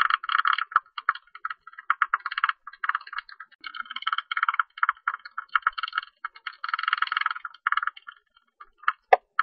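Tube-nosed bat calls: rapid buzzy trains of clicks in bursts of about half a second to a second, separated by short pauses and a few single clicks.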